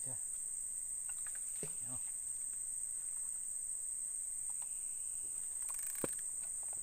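Steady, high-pitched buzzing of an insect chorus, crickets or cicadas, droning without a break, with one sharp click about six seconds in.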